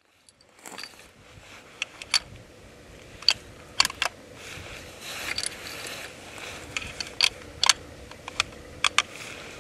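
Irregular sharp clicks and small mechanical ticks, a dozen or more spaced unevenly, over a faint steady hiss.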